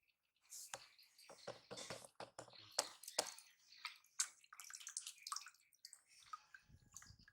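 Small irregular splashes and drips of water, a string of short sharp sounds at uneven intervals.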